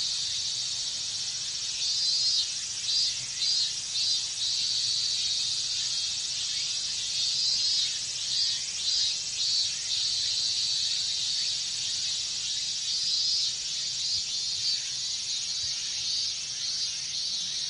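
A chorus of cicadas: a dense, steady high buzz, with robust cicadas (minmin-zemi) breaking in every few seconds with runs of pulsing calls.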